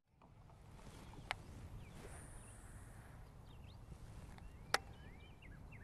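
Faint outdoor ambience: a bird chirping in short, repeated down-slurred notes through the second half, over a low steady rumble. Two sharp clicks, one about a second in and another near the end.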